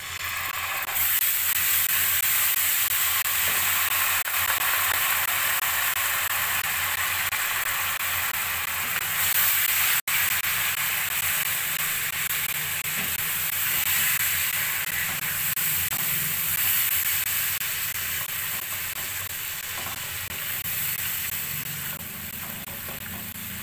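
Yogurt sizzling loudly as it hits hot oil and fried spice masala in a frying pan and is stirred in with a spatula. The hiss starts about a second in and slowly dies down toward the end as the yogurt mixes in.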